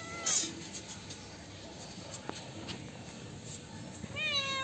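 Cats meowing for milk: a meow trails off as the stretch begins, a brief rough noisy burst follows, and after a few soft ticks another meow with a falling pitch starts near the end.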